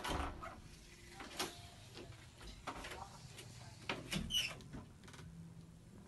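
A bedroom door latch clicking as the door opens, then a person moving about the room: scattered light knocks and handling noises, with a brief squeak about four seconds in.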